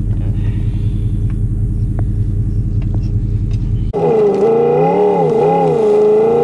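Pickup truck engine: a steady low rumble with a few faint clicks, then, after an abrupt cut about four seconds in, the engine pulling under load as it tows a chain-drawn drag harrow, its pitch wavering up and down.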